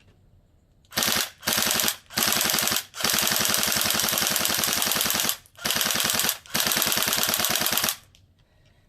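Tokyo Marui AK Storm airsoft electric gun firing on full auto in six bursts of rapid, even shots, the longest about two seconds.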